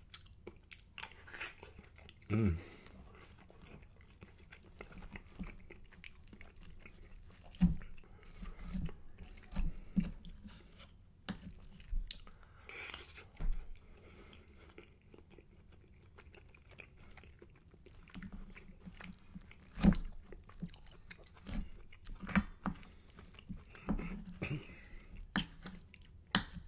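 Close-miked chewing of a mouthful of sticky spicy rice with melted cheese and browned, crunchy bits scraped from the bottom of the pan. Irregular soft mouth clicks and crunches, with a few sharper, louder ones standing out.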